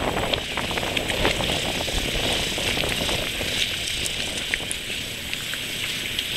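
Wind buffeting the camera microphone in an uneven low rumble, over a steady hiss of choppy water with scattered small splashes.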